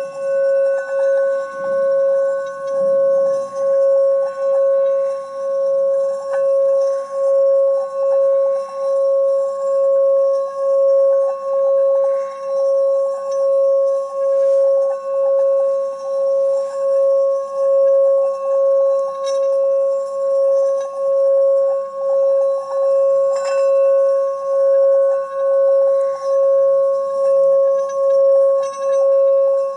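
Small brass singing bowl being sung by rubbing a wooden stick around its rim: one sustained ringing tone with a higher overtone, held without a break, swelling and fading in an even pulse a little over once a second as the stick circles.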